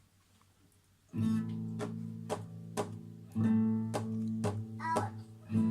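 Guitar strummed in a steady rhythm, about two strokes a second, starting about a second in after a short quiet, with a chord change about halfway through.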